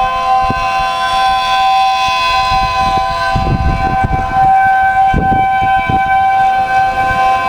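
Homemade 3D-printed miniature ACA P10 tornado siren with a 12/9-port rotor sounding a steady alert: a held chord of several tones at constant pitch. Wind buffets the microphone with low rumbles about three and a half seconds in and again around five seconds.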